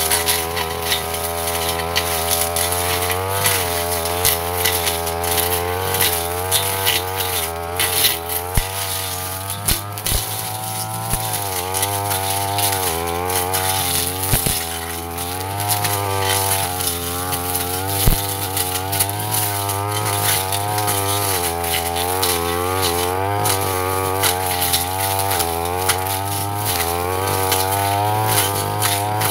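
Petrol brush cutter running at high speed with its metal blade cutting through dense undergrowth and woody saplings. The engine pitch dips and recovers again and again as the blade bites into the growth, with a few sharp knocks along the way.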